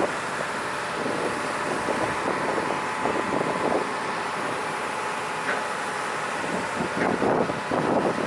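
Small car ferry under way, its engine running steadily, with wind gusting on the microphone.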